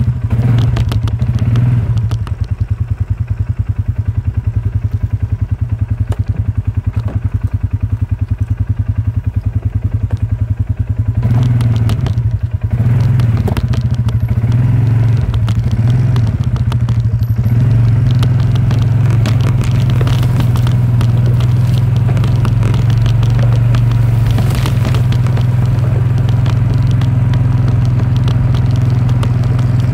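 John Deere tractor engine running steadily, with some rattling and clatter. It dips briefly about twelve seconds in, then runs a little louder and steadier.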